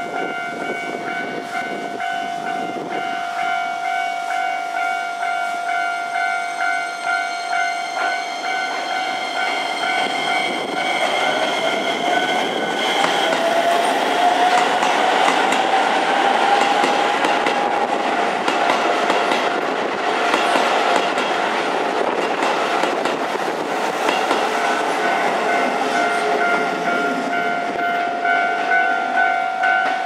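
Japanese level-crossing warning bell ringing in an even, pulsing rhythm. From about ten seconds in, a Keisei electric train runs close by with rumbling wheel noise, and its motor whine rises in pitch as it gathers speed. The bell rings out clearly again near the end.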